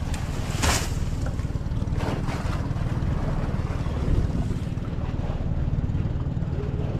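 Outrigger fishing boat's engine running with a steady low drone. A short crackly rustle of dry palm fronds being handled on deck comes about a second in.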